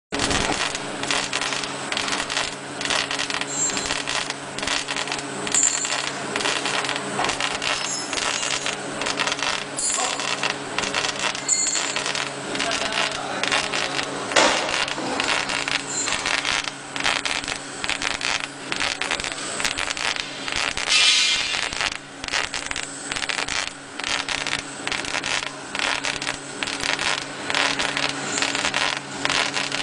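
POSSIBLE PBLE-1290 CO2 laser engraving machine etching glass: a dense, irregular crackle of rapid ticks as the head scans over the glass, over a steady low hum.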